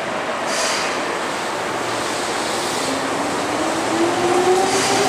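Keihan electric commuter train pulling out of the station: steady wheel-on-rail rolling noise, with the traction motors' whine rising in pitch from about three seconds in as the train picks up speed.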